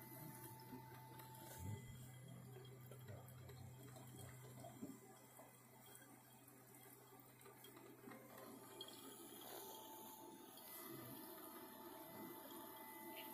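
Faint gurgling and dripping of a drip coffee maker brewing, with a low steady hum that stops about five seconds in.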